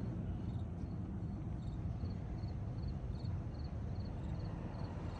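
Faint insect chirping, short high chirps repeating at about four a second, over a steady low outdoor rumble.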